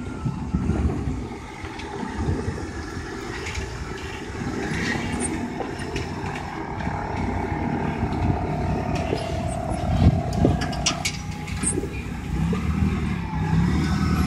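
4x4 SUV engine working at low speed under load as it crawls up a rocky chalk ledge, with stones crunching and knocking under the tyres; one loud knock comes about two-thirds of the way through.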